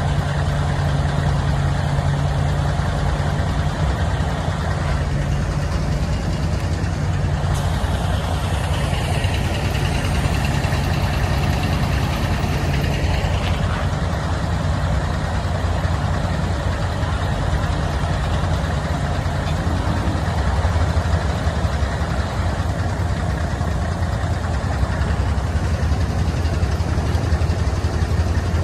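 River ferry's engine running steadily with a low, even drone while the ferry is under way.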